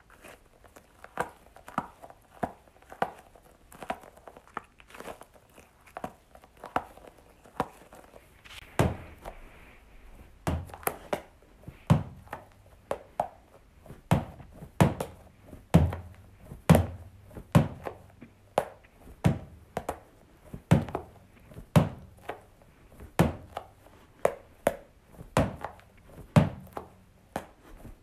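Sticky gel toy balls (Globbles) being worked by hand. Lighter squishy clicks come first; after about eight seconds they give way to a run of soft, heavier thuds, roughly one a second, as the clump is thrown against a wall.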